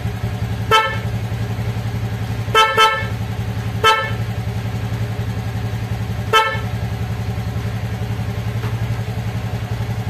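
Honda Beat scooter's electric horn tapped in five short beeps: one, a quick double, then two more singles. Under them the scooter's engine idles steadily.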